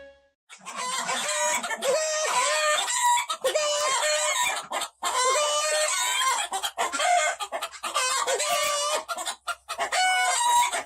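Chickens clucking and crowing in a long run of loud, choppy, pitched calls, starting about half a second in, with brief breaks.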